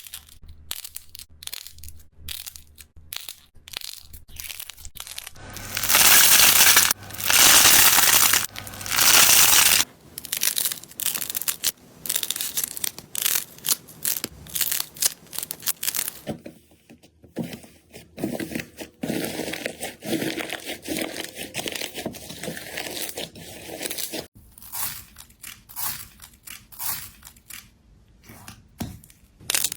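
Slime being pressed and squished by hand, giving dense crackling clicks and pops, with a louder stretch of steady crunching from about six to ten seconds in.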